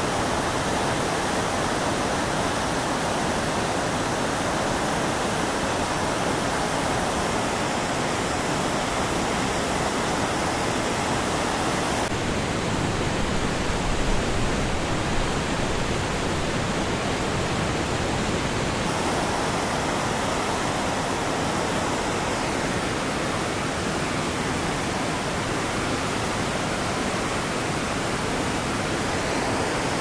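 Floodwater rushing through rapids and breaking against bridge piers: a steady wash of white-water noise from a river running high after a heavy rainstorm.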